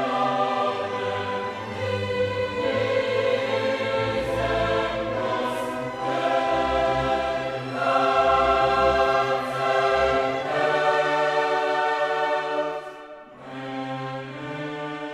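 Background music of slow, sustained choral and orchestral chords that shift every second or two. It dips briefly about thirteen seconds in and carries on more softly.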